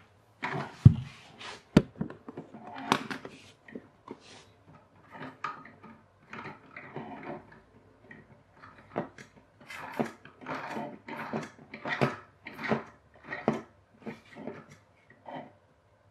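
A rubber-band car's CD wheels and 3D-printed plastic axle tubes being handled on a wooden floor: two sharp knocks about a second in, then repeated scraping and clicking strokes, faster and louder in the second half, as the axle is wound up by hand.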